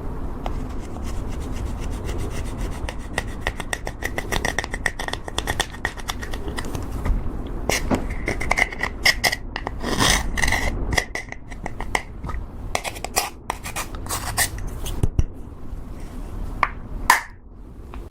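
Slime being worked and mixed, a dense, irregular run of small sticky clicks and pops over a rubbing sound, with one louder snap near the end.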